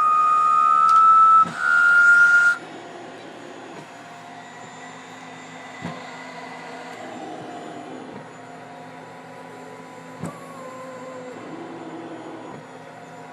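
Cough Assist machine (mechanical insufflator-exsufflator) running a cycle through a mask. It gives a loud whine with a rush of air for about a second and a half as it forces air into the lungs, then a slightly higher whine for about a second as it draws the air back out, and cuts off sharply. After that only a low steady hum with a few faint clicks remains during the pause.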